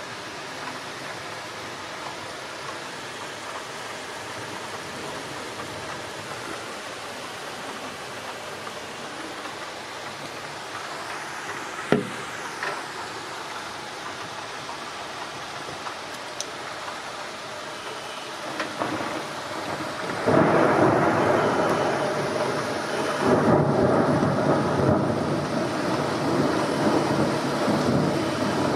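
Heavy rain falling in a steady hiss, with a single sharp knock about halfway through. After about twenty seconds the downpour suddenly gets much louder and fuller.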